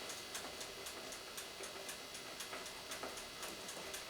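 Faint, steady ticking of a clockwork mechanism, about four ticks a second.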